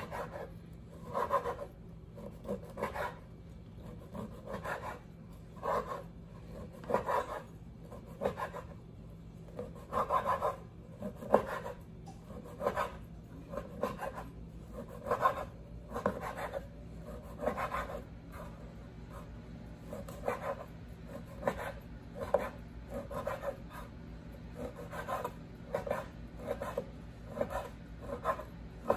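Chef's knife slicing through dry shredded kadayif (kataifi) dough onto a bamboo cutting board: short rasping cuts, about one a second, at an uneven pace.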